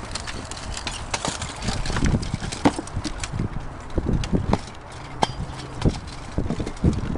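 Irregular clanks and knocks of steel armour and weapons striking in a full-contact bohurt melee, many sharp hits at uneven intervals.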